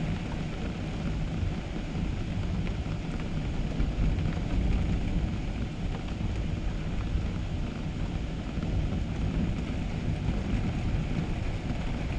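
Strong gusting storm wind, a steady low rumble that swells and eases, rising to its strongest about four seconds in.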